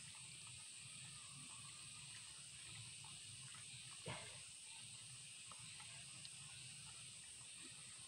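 Near silence: a faint steady high-pitched hiss, with faint rustles of hands working loose soil and one slightly louder soft knock about four seconds in.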